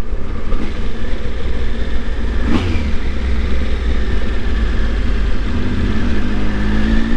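Motorcycle on the move: a steady rush of wind and road noise over the rider's microphone with the engine running, its note climbing gradually near the end as it accelerates.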